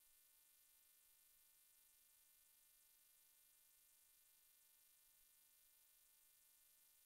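Near silence: a faint, steady hiss with a faint hum, the recording's noise floor. No engine or road sound comes through.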